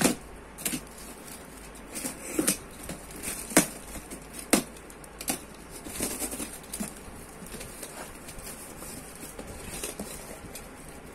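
Utility knife slicing through a taped cardboard box, with the cardboard torn and flaps pulled back: irregular sharp scrapes, rips and rustles, a few seconds apart, busiest in the first half.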